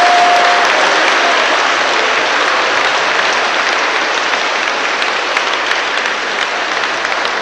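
Spectators applauding, the clapping slowly easing off.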